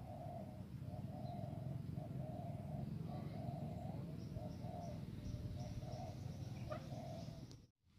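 A bird calling a short, low cooing note over and over, about twice a second, over a steady low rumble. The sound drops out briefly near the end.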